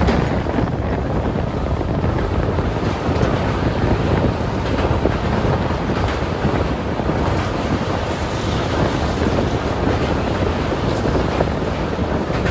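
Steady rush of wind buffeting the microphone over the low running rumble of an express train, heard from an open door of a moving coach as it crosses a steel truss bridge.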